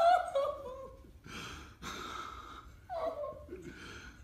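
Children's emotional gasps and heavy breathing through their hands. A high squeal trails off at the start, and a short falling whimper comes about three seconds in.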